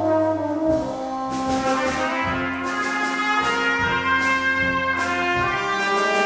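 Brass ensemble of two trumpets, horn, trombone, euphonium and tuba playing sustained melody and harmony over a tuba bass line. A drum kit's cymbals strike about once a second.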